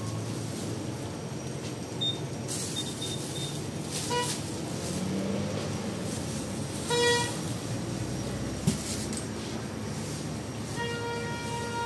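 A vehicle running, with its horn tooting briefly twice and then sounding a longer toot near the end; a single sharp click comes in between.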